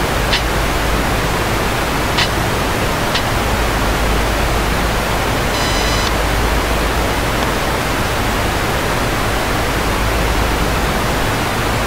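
Loud, steady hiss of static on the sound feed with a low hum underneath, while the microphone signal is cut out. Three faint clicks come in the first few seconds, and a short buzzy tone sounds about six seconds in.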